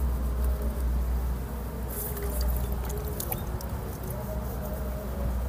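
Soil crumbling and rustling as a celery clump is pulled apart by hand, with scattered small crackles and clicks from about two seconds in.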